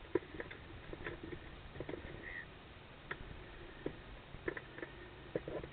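Scattered light clicks and taps of gear being handled, some in quick pairs near the end, with a faint short chirp about two seconds in.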